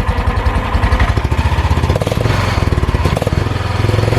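Small gas golf cart engine running with a rapid, even putter through a muffler, which the friends say sounds like it needs a tune-up.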